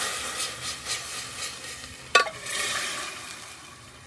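Tomato sauce sizzling and crackling as it pours into a hot, preheated stainless steel saucepan, the hiss fading away over a few seconds. About two seconds in comes a single sharp clink, the glass jar knocking the pan.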